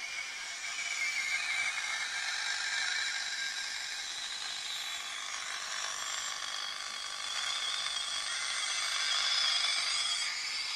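Tesla 563A valve radio's speaker giving out hissing static with faint wavering whistles drifting through it, swelling and easing a little.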